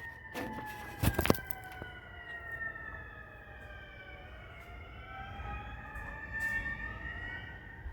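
Several ambulance sirens wailing at once, their slow rising and falling tones overlapping and crossing one another, fading toward the end. A few sharp knocks in the first second or so are the loudest moments.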